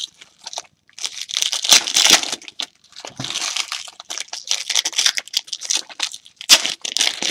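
Foil trading-card pack wrappers crinkling and tearing as the packs are ripped open by hand, in a string of short crackly bursts.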